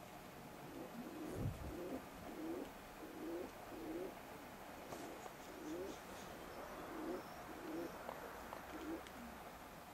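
Domestic pigeons cooing: a run of soft, low coos repeating roughly every second. A soft low thump comes about a second and a half in.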